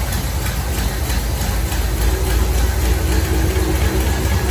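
A 1973 Corvette's carbureted V8 running steadily on its first start in three years, fed fresh gasoline mixed with a little two-stroke oil.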